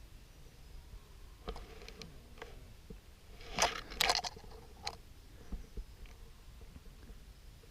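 A handful of short clicks and scuffs close to the microphone, loudest in a brief cluster about halfway through.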